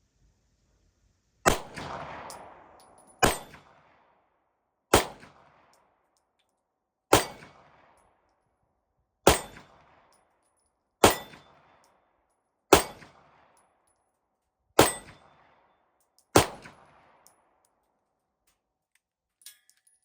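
Walther P1 9mm pistol firing nine slow, deliberate shots, about two seconds apart, each sharp report followed by a short fading echo.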